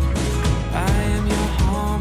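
Music with a steady drum beat, about two or three beats a second.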